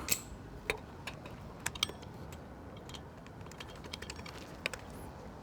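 Scattered light clicks and taps at irregular intervals: a small screw being handled and started by hand into the motorcycle's horn mounting.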